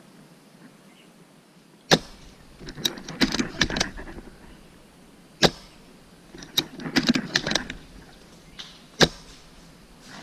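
Airsoft sniper rifle fired three times, about three and a half seconds apart, with clusters of clicks and rattles between the shots.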